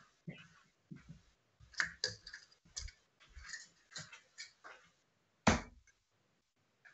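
Steel-tip darts being pulled from a bristle dartboard and handled: a string of light clicks and taps, then one louder thud about five and a half seconds in.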